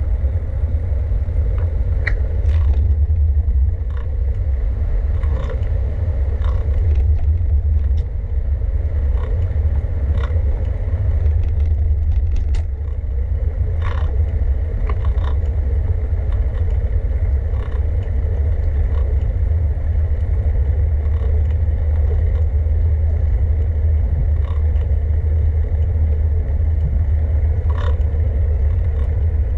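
Steady, loud, deep rumble of wind and road noise on the microphone of a moving bicycle, with scattered short clicks and rattles from the bike.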